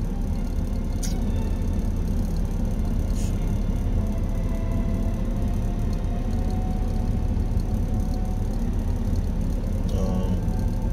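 A car idling, heard from inside the cabin: a steady low rumble, with a brief click about a second in.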